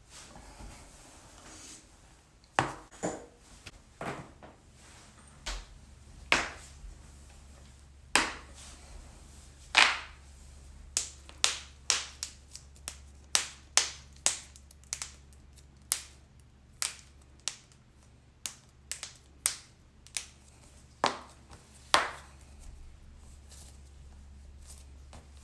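Human joints cracking: a long series of sharp pops, a few at a time at first, then coming quickly one after another for about ten seconds, with two more near the end.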